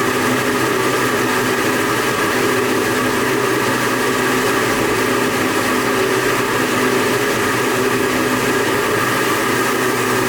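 Century-old water-driven microhydro turbine spinning steadily: a steady hum of several even tones over a constant rushing hiss.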